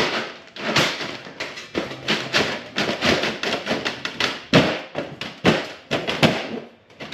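Corrugated galvanized steel sheet being pushed and slid into place on a wall by hand, the thin metal giving a string of irregular knocks and taps, a few a second.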